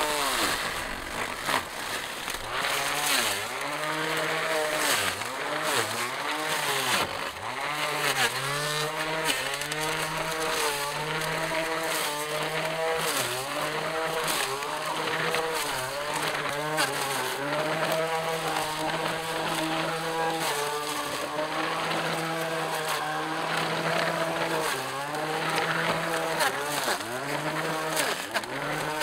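Small battery-powered electric trimmer motor running with spinning metal blades, cutting tall grass and weeds. Its pitch dips again and again as it bogs down in the taller growth, then picks back up.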